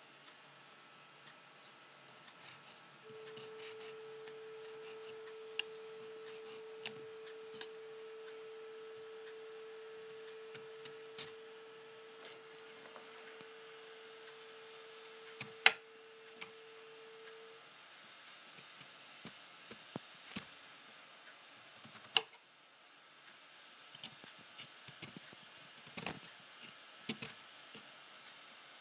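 Knife cutting through a cucumber on a countertop: scattered sharp clicks and knocks of the blade, the loudest just past halfway and another about three-quarters through. A steady hum of one pitch starts a few seconds in and stops about two-thirds of the way through.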